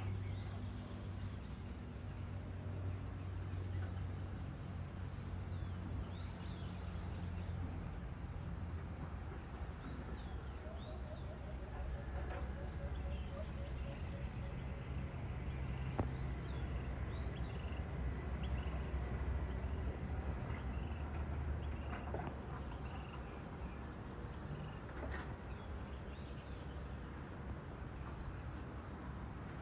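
Construction machinery's diesel engines running as a low steady rumble that eases off about three-quarters of the way through, under a steady high drone of insects and scattered short bird chirps.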